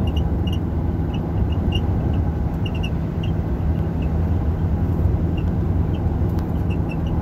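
Steady road and engine noise heard inside a car's cabin at highway speed: a low, even rumble, with faint scattered light ticks over it.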